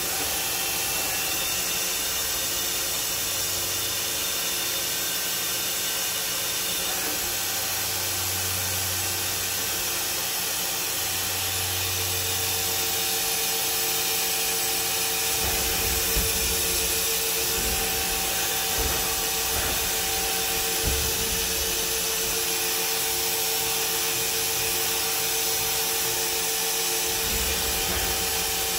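Mori Seiki MT-1500SZ CNC turn-mill center running, a steady machine hum and whine with a hiss, and a few low thumps in the second half as its axes move.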